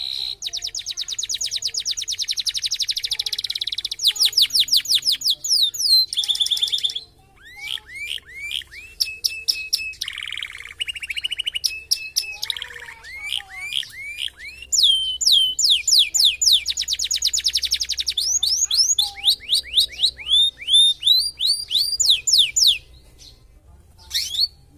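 Domestic canary singing a long, varied song of fast rattling trills, rising whistled sweeps and runs of repeated chips, with short breaks about seven and fourteen seconds in. It is an 'isian' canary, one whose song is filled out with phrases learned from other birds.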